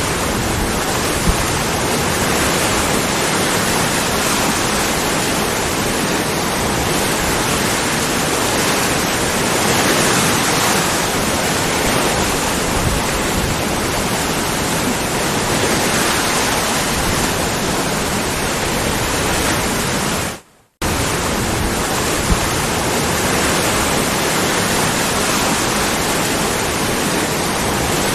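Waterfall: water pouring and splashing in a steady, dense rush. It cuts out to silence for a moment about twenty seconds in, then resumes.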